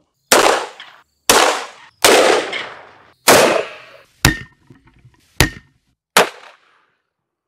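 Seven revolver shots, about one a second, in quick cuts from different guns. The first four ring on with a long echo, the last three are short and sharp.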